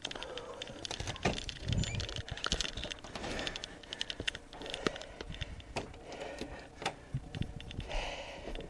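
Irregular sharp clicks and dull knocks from footsteps and handling on a weathered wooden porch, some louder thuds among many small taps.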